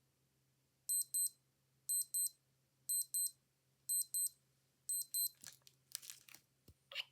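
Old digital watch alarm beeping: five high, short double beeps, one pair each second. After the last pair the beeping stops, and rustling handling noise and a knock follow.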